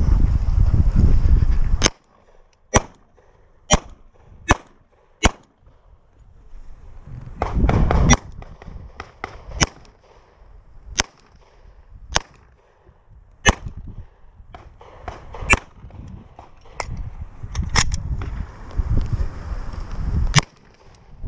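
Semi-automatic pistol firing about fifteen single shots, heard from the shooter's own position: a quick string of five, one roughly every second, then more shots spaced out one to two seconds apart. Low rumbling noise comes at the start and in patches between the shots.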